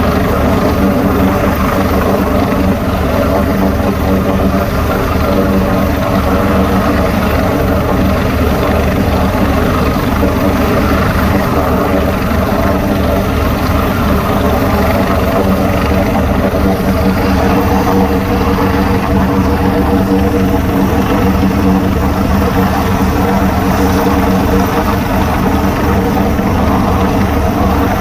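Coastguard search-and-rescue helicopter, an AgustaWestland AW189, hovering: a loud, steady rotor and turbine sound with an even, fast beat from the rotor blades.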